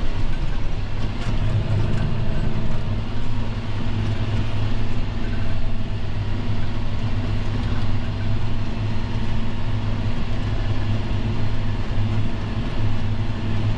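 John Deere tractor's diesel engine running steadily at full throttle, heard from inside the cab, as the tractor pulls a subsoiler through the soil under heavy load.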